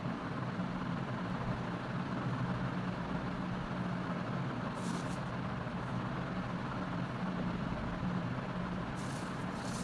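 A steady low hum of background noise, with a few short scratching strokes of a neckline being drawn on the pattern, once about halfway through and again near the end.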